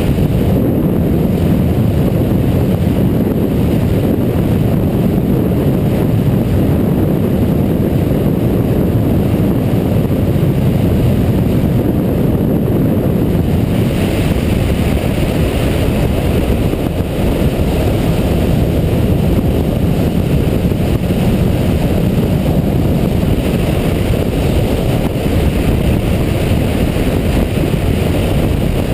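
Steady wind rush on the microphone of a Yamaha MT-09 Tracer motorcycle riding at highway speed, with the bike's engine running underneath.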